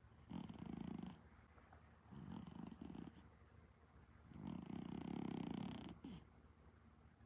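Exotic Shorthair cat snoring in its sleep: three snores, the third the longest.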